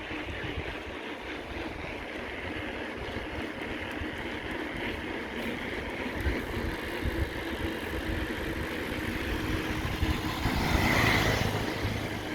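Road vehicle noise with irregular low rumble from wind on the microphone, swelling louder to a peak about eleven seconds in as something passes close.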